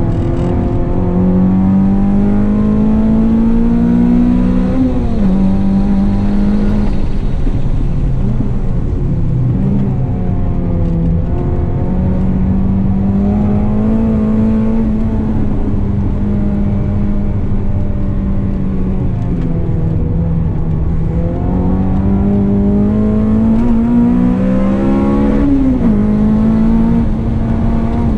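Honda Civic FN2 Type-R's 2.0-litre four-cylinder engine, with a decat 4-2-1 header and custom muffler, heard from inside the cabin at track pace. The engine note climbs in pitch twice, in the first few seconds and again near the end, each time ending in a sharp drop, and holds fairly steady in between.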